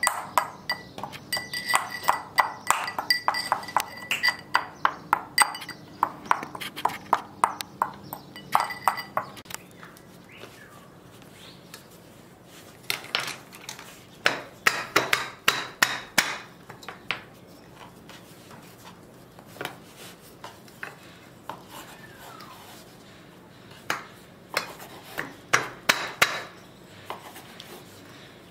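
A thin stick stirring and tapping inside a small metal cup: a fast, even run of ringing metallic clinks, several a second, that stops suddenly about nine seconds in. Later come scattered clusters of taps and knocks as bread dough is kneaded and cut on a wooden board.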